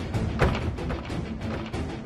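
Dramatic background score with quick, steady drum hits; one hit about half a second in is louder than the rest.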